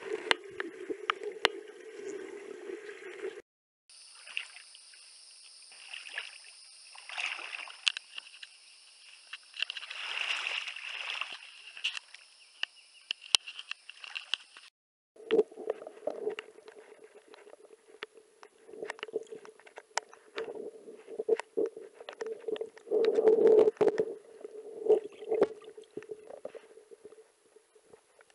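Water sloshing and gurgling around a camera held underwater, with many sharp clicks and swells of noise as it moves. The sound drops out abruptly twice.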